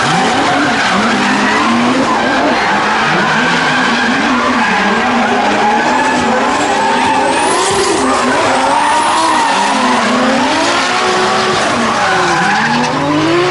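Two drift cars sliding in tandem, their engines revving up and down constantly at high revs, with tyres screeching and skidding through the corners.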